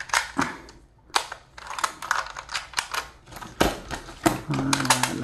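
A plastic AK magazine loader in use: 7.62×39 rifle cartridges clack and click as they are dropped into the loader and pushed down into the magazine. The clicks come in an irregular run, several a second.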